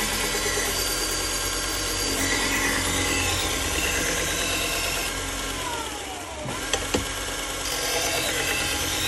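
AMK-75 belt knife sharpener running steadily with a 600-grit 3M Trizact belt, a Shun chef's knife blade drawn across it in sharpening passes. About two-thirds through, the tone falls and dips, two sharp clicks follow, and then the steady running sound returns.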